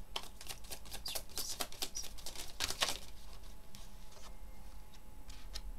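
Tarot cards being shuffled by hand: a quick run of papery flicks and clicks for about three seconds. Then a few softer taps as cards are drawn and laid down on the cloth.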